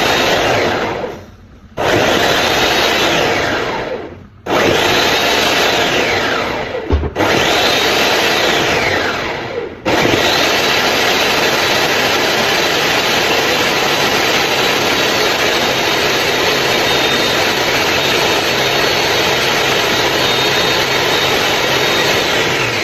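Electric kitchen blender blending coconut with hot water to make coconut milk. It is pulsed in four runs of about two and a half seconds, the motor's pitch falling as each run stops, then it runs steadily from about ten seconds in.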